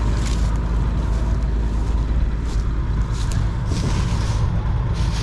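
John Deere 4400 combine running steadily while harvesting soybeans, a constant engine and machinery hum.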